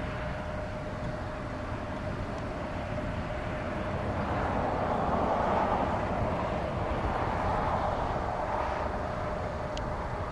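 Jet airliner engines in a steady rumble that slowly swells, is loudest around the middle, then eases off, with a thin steady hum running throughout.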